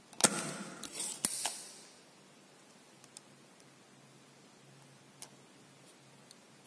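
Spring-loaded desoldering pump (solder sucker) fired at a molten solder joint: a sharp snap with a short hiss of air as the plunger shoots back, then three more clicks over the next second as it is handled, after which only a few faint ticks remain.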